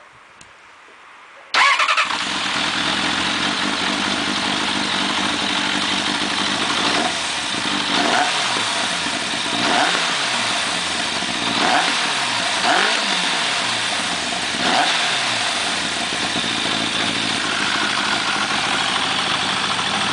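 1993 Suzuki GSX-R 750 W's inline-four engine, breathing through a BOS aftermarket silencer, starts about a second and a half in and settles into a loud idle. Midway it is revved in a series of short throttle blips, each rising and falling quickly, then it returns to a steady idle.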